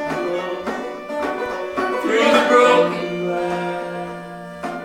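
Banjo picking with a fiddle bowing along, in an instrumental gap between the sung lines of a slow folk song. A long note is held through the second half.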